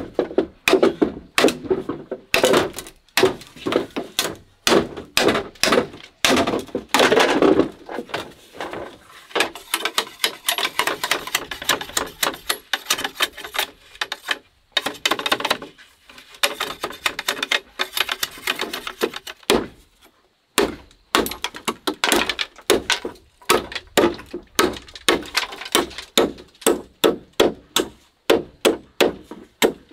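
A knife blade chopping and splitting green bamboo poles: a long run of sharp knocks and cracks, settling near the end into steady blows about two or three a second.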